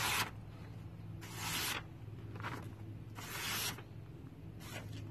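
A freshly sharpened hand-forged steel knife slicing through a sheet of paper in a few quick strokes, each a brief papery hiss of about half a second. The clean, easy cuts are the sign of a wicked sharp edge.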